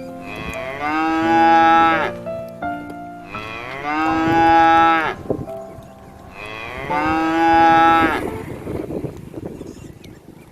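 A cow mooing three times, each moo a long drawn-out call lasting one and a half to two seconds.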